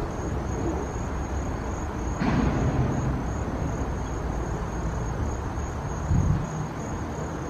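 Outdoor ambience: an insect's high, steady pulsing trill over a low, steady rumble of distant traffic, swelling briefly about two seconds in.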